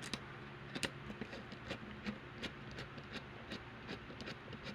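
Light, irregular clicking of a screwdriver turning a small screw to tighten down a laptop CPU heatsink, a few clicks a second over a faint steady hum.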